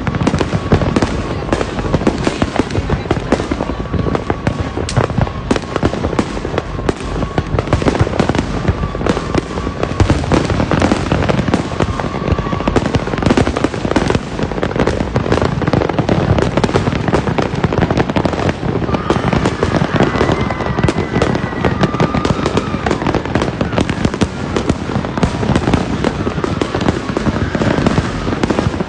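Many fireworks and firecrackers going off at once in a dense, continuous crackle of bangs and pops.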